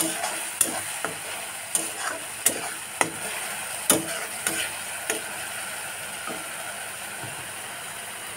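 Onion and ginger-garlic-chilli paste sizzling in hot oil in a metal kadai, while a steel spatula scrapes and knocks against the pan as it is stirred, about once or twice a second. The stirring strokes thin out after about five seconds, leaving the steady sizzle.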